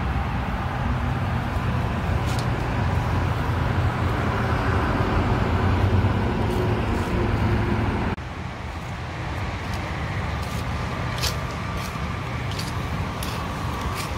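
Steady low rumble of road-vehicle noise, like a car running on the road. About eight seconds in, the level drops suddenly, and a few faint clicks follow.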